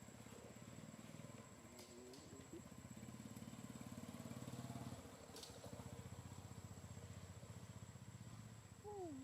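A small engine running steadily at low level, with two short falling calls near the end.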